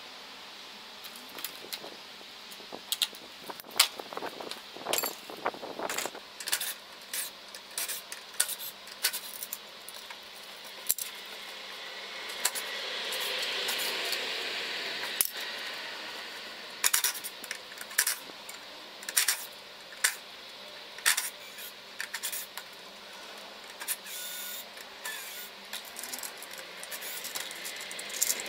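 Light metallic clicks and clinks of hand tools and gate hardware being handled at a wooden gate's lock and bolts, irregular and scattered throughout. A soft rushing noise swells and fades about halfway through.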